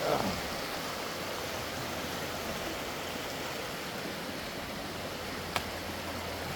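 Creek running high after days of rain, water rushing steadily over rocks and small waterfalls. A short falling tone at the very start and a single sharp click about five and a half seconds in.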